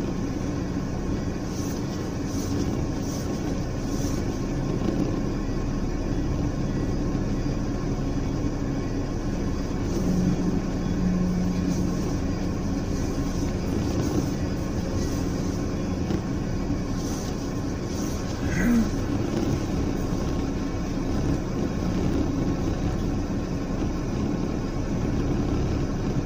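A vehicle engine idling steadily, with a low even hum. A short rising squeak comes about 19 seconds in.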